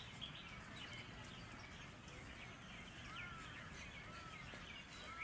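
Several birds chirping faintly over a quiet rural background, with a few short calls that rise and fall in pitch in the second half.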